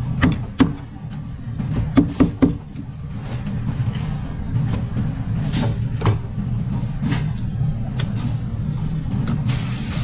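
Sharp knocks of a knife and fish fillets on a plastic cutting board, several in quick succession near the start and a few more later, over a steady low hum. Near the end a water spray starts hissing as the board is rinsed.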